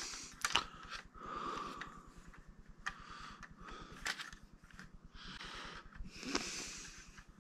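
Faint handling of a plastic toy figure and its packaging: a few scattered light clicks and soft rustles.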